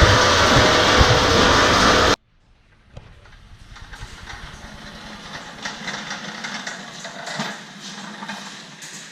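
Pecan processing machinery running with a loud, steady mechanical din that cuts off abruptly about two seconds in. It is followed by quieter rattling and clicking of nuts moving through the machines over a low hum.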